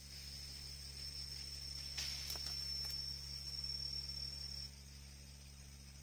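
An insect singing a steady, high-pitched whine that stops abruptly about three-quarters of the way through, with a few soft clicks about two seconds in.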